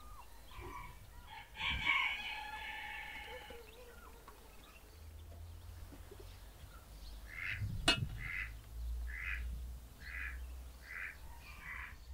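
Farmyard poultry: a rooster crows once, starting about a second and a half in, and later a bird gives six short calls evenly spaced under a second apart. A single sharp click sounds near the middle.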